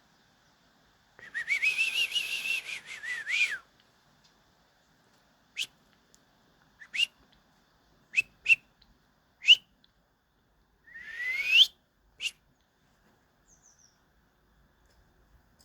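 Whistling and bird calls: a wavering whistle lasting about two seconds, then a string of short rising whistle notes and one longer upward-sliding whistle. Faint high chirps follow near the end.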